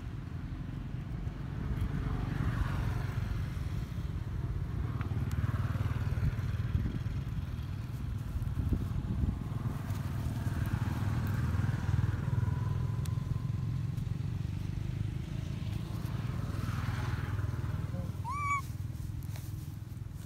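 Wind buffeting the microphone: a steady, flickering low rumble. A short, high rising squeak near the end.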